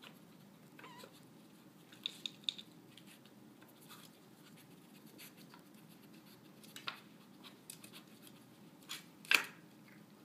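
A dog working a wooden treat puzzle: the wooden sliders scrape and click as it noses and paws them, in scattered short knocks with a few quick clicks about two seconds in and a sharper knock near the end.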